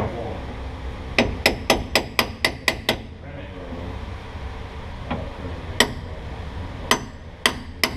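Hammer tapping a seal driver to drive a new pinion seal into the differential housing. A quick run of about eight taps, roughly four a second, comes about a second in, followed by a few separate single taps.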